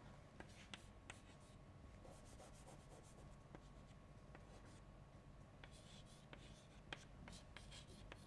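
Faint chalk on a chalkboard as equations are written: irregular sharp taps and short scratches of the chalk stroke against the board.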